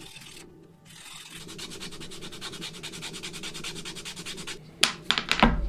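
Sandpaper rubbed by hand over a small wooden lure blank in quick, even strokes, sanding it to shape. Near the end there are a few sharp knocks.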